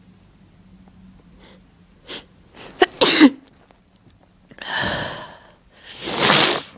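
A person sneezing three times: a quick catch of breath, then a sharp voiced sneeze about three seconds in, followed by two breathy sneezes near the end, the last the loudest.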